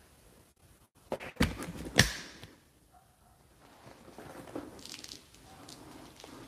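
A quick run of sharp knocks or clacks about a second in, the last one the loudest, followed later by faint rustling and shuffling.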